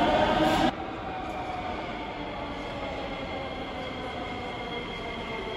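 Metro train approaching an underground platform, heard as steady noise with a faint high whine that grows in from about the middle.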